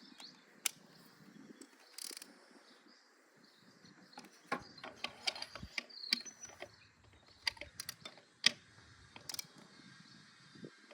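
Torque wrench ratcheting in short, irregular strokes as the steering damper's bolt is tightened to 30 Newton meters, with one louder click about eight and a half seconds in.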